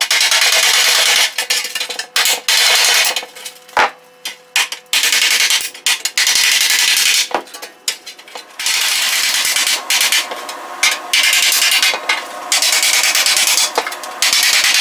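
Body hammer striking rapidly against a dolly on the steel front valance of a Triumph Spitfire, hammer-and-dolly work flattening its bent, beaten edges. Runs of quick metallic taps a second or two long, with short breaks and a few single louder knocks.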